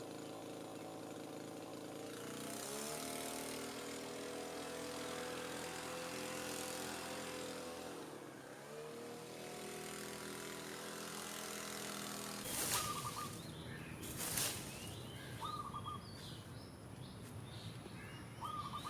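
Petrol leaf blower's small engine running, throttled up about two seconds in, dipping briefly and rising again, then shut off about twelve seconds in. Afterwards a couple of sharp knocks and a few short bird chirps.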